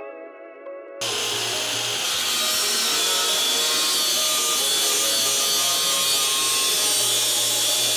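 Angle grinder with a cut-off disc cutting into a steel brake dust shield clamped in a vise, trimming it to clear a larger brake disc. It starts abruptly about a second in and runs steadily and loudly. Soft mallet-instrument music plays before it starts.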